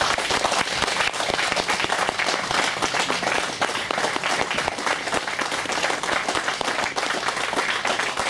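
Audience applauding steadily, a dense patter of many hands clapping at the end of a talk.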